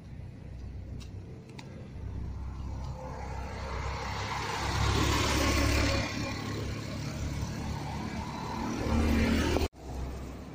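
A motor vehicle on the street passes close, its engine and tyre noise swelling to a peak about five seconds in, then easing off. The sound cuts off abruptly just before the end.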